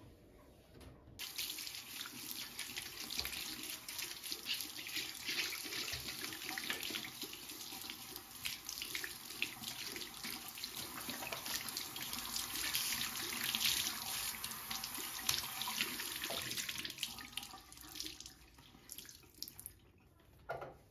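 Bathroom tap running into a ceramic washbasin, the water splashing over hands held under the stream. The tap comes on about a second in and the flow fades out near the end.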